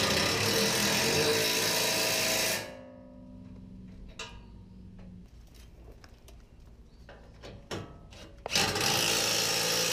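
Cordless impact wrench run in two bursts of about two and a half seconds each, one at the start and one near the end, driving home the bumper mounting bolts. A few small clicks come between the bursts.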